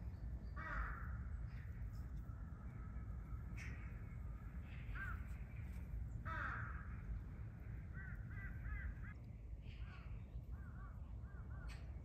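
Bird calls: a harsh caw about half a second in and another about six seconds in, then strings of short chirping notes in quick series near the end, over a steady low background rumble.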